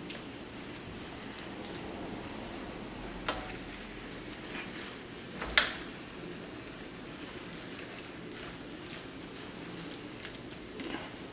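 Potato and cabbage mixture sizzling steadily in a hot buttered frying pan, with a few sharp clicks and knocks, the loudest about halfway through.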